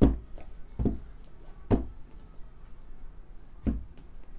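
AirPods Pro retail box being handled, giving four short knocks: the first three about a second apart and the last near the end.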